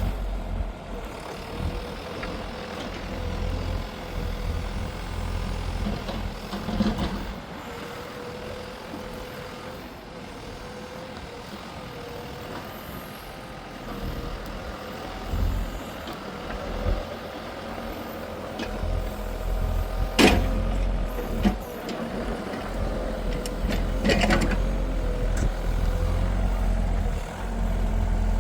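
Chinese mini excavator running, a steady engine rumble with a held whine over it, and a few sharp knocks and clatters, the loudest about two-thirds of the way through.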